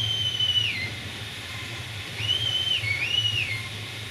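Steam whistle of the narrow-gauge steam locomotive 764.408 'Cozia 1' blowing three high toots: one at the start, then two shorter ones close together about two seconds in, each dropping in pitch as it closes. Steam hisses steadily underneath.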